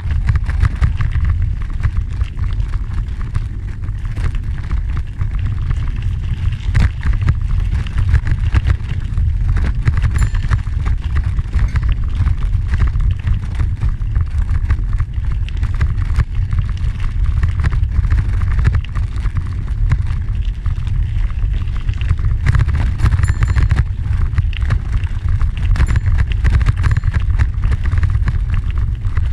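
Wind rumbling on the microphone of a moving bicycle, over a dense, irregular crackle of tyres rolling on a gravel trail.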